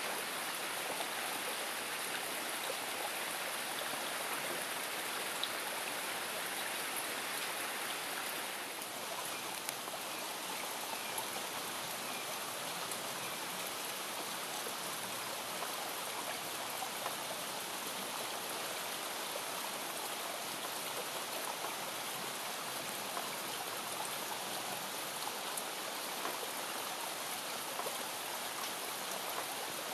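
Heavy summer downpour: a dense, steady hiss of rain with scattered drop ticks. It drops slightly in level about nine seconds in.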